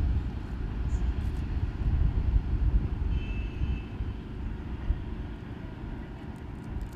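Wind rumbling on the microphone: a low, uneven rumble, with a brief faint high tone about three seconds in.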